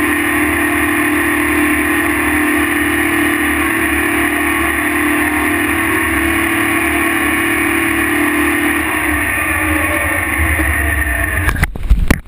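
Diesel engine of the tractor towing a pull-type earth scraper running steadily under load, its steady note easing about nine seconds in. Near the end, loud knocks and bumps as the mounted camera is jolted and tips over.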